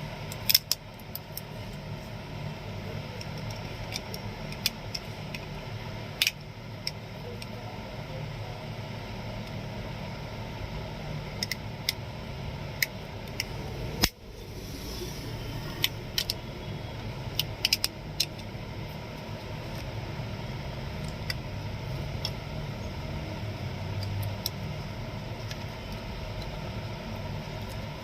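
Scattered small clicks, ticks and scrapes of hand work on a keypad mobile phone's plastic casing as its tape is taken off and the phone is opened, over a steady low background hum.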